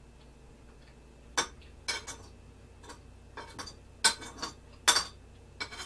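Metal spoon clinking and scraping against a ceramic plate as rice is scooped up: a series of short, sharp clinks, the loudest about four and five seconds in.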